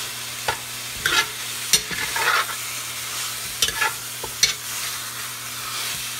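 Pork pieces sizzling as they brown over high heat in a cast iron pot, with a metal spoon scraping and knocking against the pot as the meat is stirred and turned. The knocks come every half second or so and stop near the end, leaving only the sizzle.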